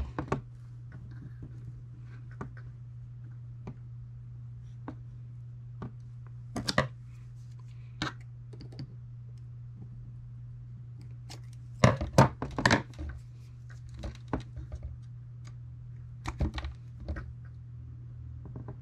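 Scattered light clicks and knocks from small tools and wires being handled on a workbench during soldering, with a quick cluster of sharper clicks about twelve seconds in, over a steady low hum.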